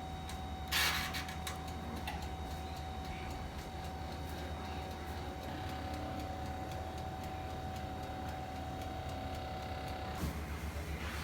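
Steady hum of a small kitchen appliance motor, with a brief clatter about a second in. The hum's thin tone cuts off shortly before the end, followed by a couple of knocks.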